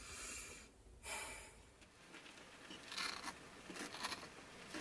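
Two brief rustling hisses, then a table knife scraping pesto across a slice of toasted bread: a few rough scrapes and clicks of the blade on the crusty toast a little past the middle.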